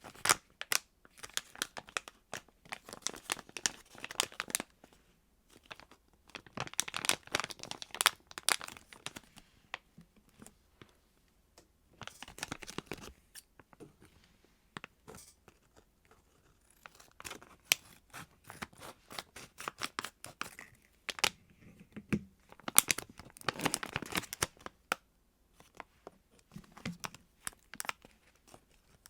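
Squishy squeeze toys being squeezed and handled close up, in bursts of crinkling and crackling with short pauses between them.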